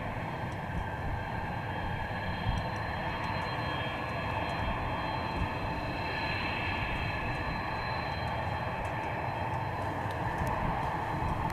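Dassault Falcon 900EX's three Honeywell TFE731 turbofan engines running at taxi power: a steady jet rumble with an even, high turbine whine.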